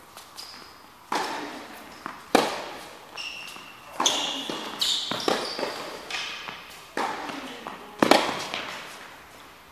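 Tennis ball struck by rackets and bouncing on an indoor court during a rally: sharp pops about once a second, each ringing on in the hall's echo, with the loudest strike near the end. A few short high squeaks come in the middle of the rally.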